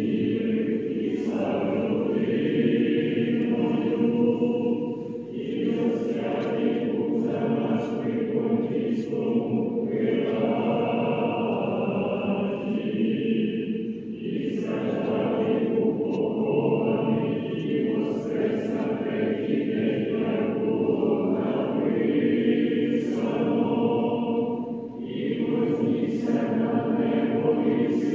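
An Orthodox church choir sings the liturgy in long, sustained phrases, with short breaks between them.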